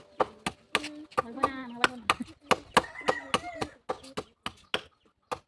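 Rapid, irregular sharp blows of a hand tool, several a second, as of chopping or hammering on building work, with voices talking in between.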